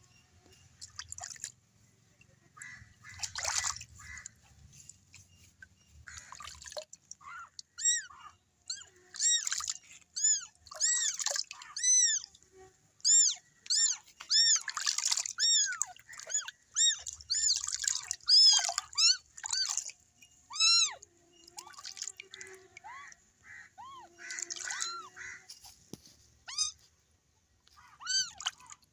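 A very young kitten mewing over and over in short, high cries that arch up and down in pitch while it is held and washed in a basin of water. Water splashes and drips between the cries.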